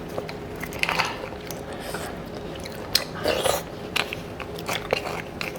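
Close-miked eating sounds: a person biting and chewing cooked beef bone marrow, with wet smacks and a few sharp clicks.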